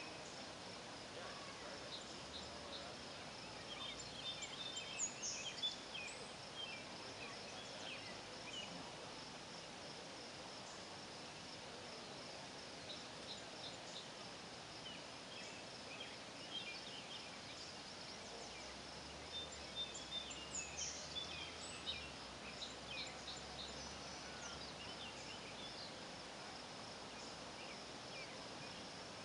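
Faint evening outdoor chorus: a steady, high, pulsing insect trill under scattered short bird chirps and calls, which come in small flurries about five seconds in and again around twenty seconds.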